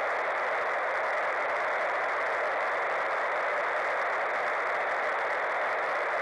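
Steady hiss of a VHF FM radio receiver tuned to the International Space Station's downlink, with no voice on the channel between the astronaut's answers.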